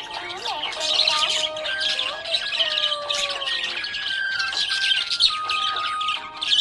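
Budgerigars chirping and squawking in a dense, continuous high chatter, over background music with long held notes.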